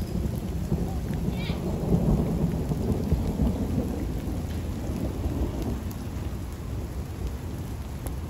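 Rain with the low, rolling rumble of distant thunder, which swells about two seconds in and slowly eases off. A bird chirps briefly about a second and a half in.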